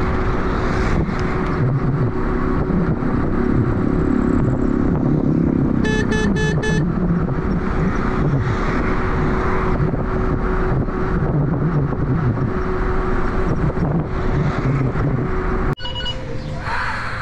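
Wind and road rush from a Honda U-Be electric scooter riding along a city road, with a faint steady hum underneath. About six seconds in, a vehicle horn gives four quick short toots. Near the end the road noise cuts off sharply to quieter street sounds.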